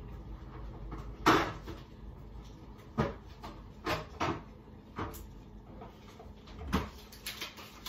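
Rummaging in a fridge-freezer: a string of sharp knocks and clatters as items and shelves are handled, the loudest about a second in, and a last thud near the end as the fridge door is pushed shut.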